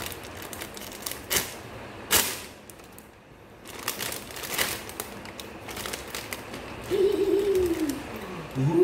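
A clear plastic bag crinkling and hard plastic model-kit runners clicking and knocking against each other as they are handled and pulled out of the bag, with several sharp clicks. A short wordless vocal sound gliding in pitch comes near the end.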